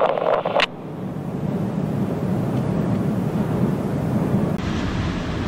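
Steady low rumbling roar of a churning lava lake heard from the crater rim, swelling slightly. A brighter hiss joins about four and a half seconds in.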